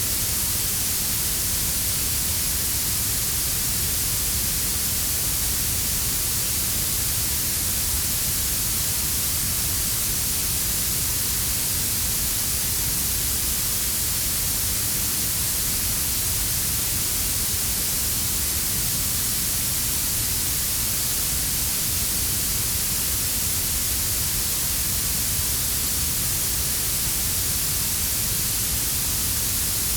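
Synthetic blue noise: a steady, even hiss strongest in the high treble, blended with a quieter brown-noise rumble underneath. It does not change.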